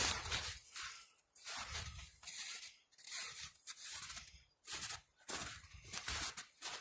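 Footsteps crunching in snow: faint, regular steps at a walking pace, roughly two every second.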